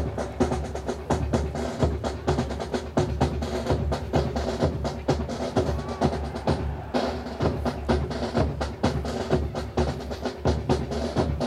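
Military drum corps playing a steady marching cadence on snare drums and bass drum, with rapid sharp snare strokes and rolls over regular bass-drum beats.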